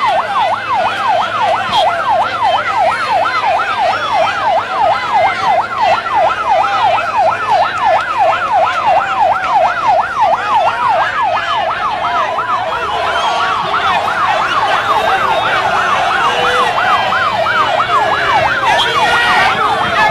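Vehicle siren in a fast yelp, sweeping up and down about four times a second, with slower wailing glides coming in during the second half, over the noise of a large crowd.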